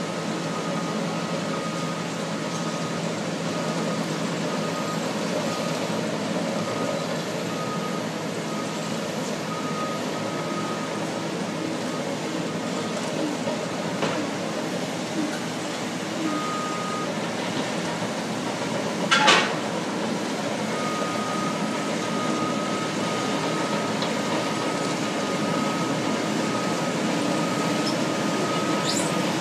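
Diesel bulldozers and loaders running steadily as they work sand, with a backup alarm beeping at an even pace that stops for a while in the middle and then resumes. A single sharp bang about two-thirds of the way through is the loudest moment.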